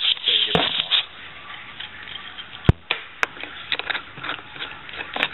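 Metal tools and engine parts being handled on a bench while the rocker-arm shafts are worked out of a Honda 50 cylinder head: several sharp metallic clicks spread through, with scraping and rustling between them.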